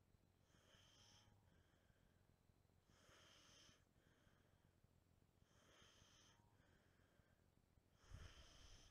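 Near silence, with a faint high-pitched sound repeating four times, about every two and a half seconds, and a low bump near the end.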